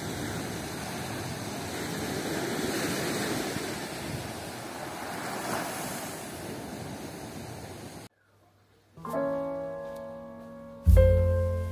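Sea waves breaking and washing up a sandy beach, swelling and easing. About eight seconds in the surf cuts off, and after a second of silence piano music begins.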